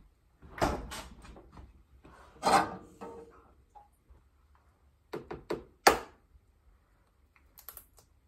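Kitchen handling knocks: two dull thumps in the first few seconds, then a quick run of three sharp knocks about five to six seconds in, the last the loudest, and a few light clicks near the end.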